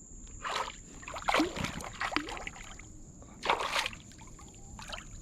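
Water splashing and sloshing around a kayak in about five short bursts, while a hooked fish is being fought close by.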